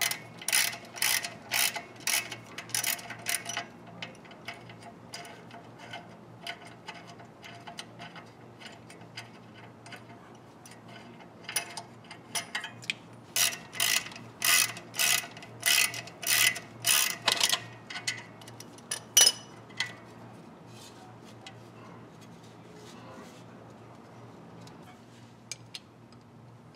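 Hand ratchet wrench clicking in quick runs as the clutch pressure plate bolts are backed off the flywheel, with two spells of ratcheting separated by a pause. Near the end comes one sharp metallic clink.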